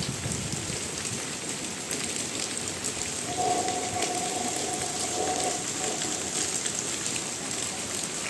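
Steady rain falling on a surface, a constant hiss with a fine patter of drops. From about three and a half seconds in, a thin steady tone sounds faintly over it for a couple of seconds.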